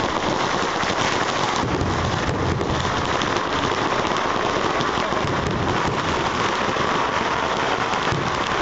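Fireworks going off in a dense, continuous barrage: a steady wash of crackling and popping with rapid bangs mixed in, no single burst standing out.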